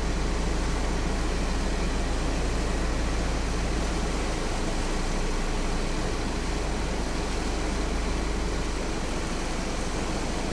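Flash-flooded creek water rushing as a steady, loud noise, with a low, steady hum underneath.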